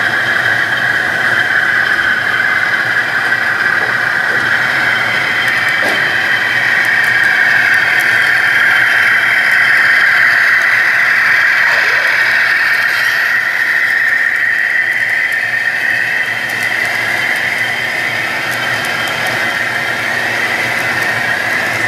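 Model train running past, with a steady high-pitched squealing whine that dips slightly in pitch midway.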